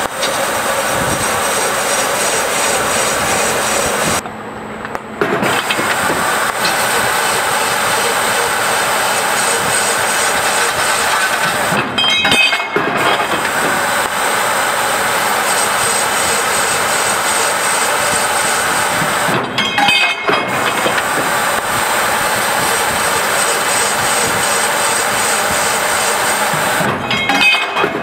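Haven Model 922 tube end finisher running, its spindle cutters machining the ends of metal tubes fed along its roller conveyor. It makes a steady, dense mechanical noise, broken briefly about every seven to eight seconds.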